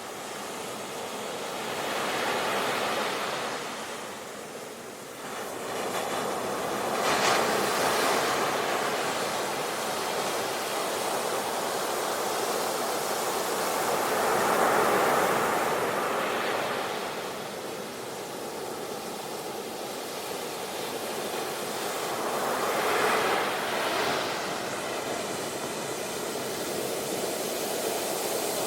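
Ocean waves breaking and washing onto a beach, a steady rush of surf that swells and ebbs, with several larger breakers surging up in turn.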